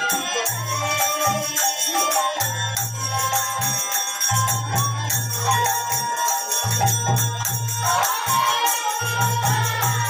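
Devotional kirtan music: a flute melody over fast, steady jingling of hand cymbals and rhythmic percussion.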